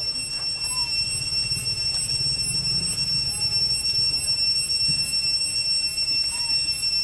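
A steady, unchanging high-pitched whine with several evenly spaced overtones over a low rumble, with a couple of faint short chirps.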